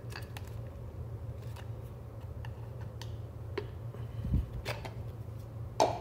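Plastic housing of a CEE form industrial connector clicking and knocking as it is unlatched at its notch and pulled apart by hand: scattered light clicks, a low knock a little past four seconds in and a louder clack near the end, over a low steady hum.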